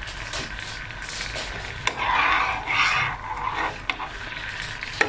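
Coconut cream bubbling and sizzling in a pan as it cooks down into latik, with a metal spoon clicking and scraping against the pan and a louder stretch of bubbling about two seconds in. The cream has begun to release its coconut oil: the latik is nearly done.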